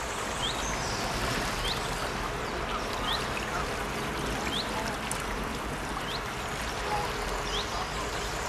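Small brook babbling steadily, with a bird repeating a short, high chirp every second or so.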